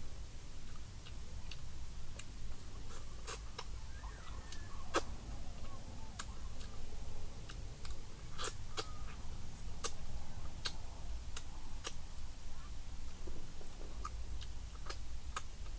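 A person eating fried eel: chewing and mouth smacks, with sharp clicks scattered irregularly throughout, over a low steady rumble.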